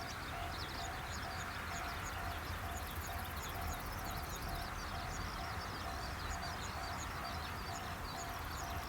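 Japanese railway level-crossing alarm ringing steadily, a repeating electronic double tone about twice a second, which warns that a train is approaching.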